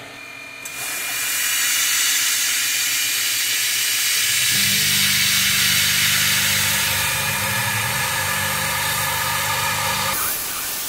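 A mist-coolant sprayer comes on with a strong steady hiss about a second in. From about four and a half seconds the PM-30 CNC mill's end mill cuts into the aluminium part, a steady low drone under the hiss.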